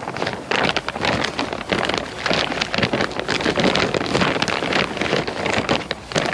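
Plastic packaging crinkling and rustling in a dense, continuous run of crackles as new motorcycle gloves are handled and unwrapped.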